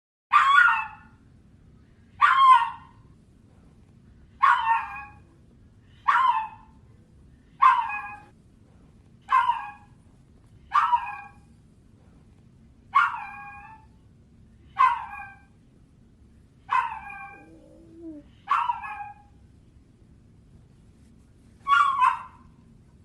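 A dog crying in short, high whining yelps, about a dozen of them, one every second and a half or two, with a longer pause before the last one.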